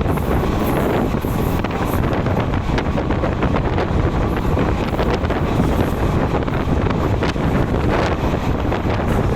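Passenger train coach running at speed: steady wind rushing over the microphone on top of the rumble of wheels on rail, with a continual run of short clicks and knocks.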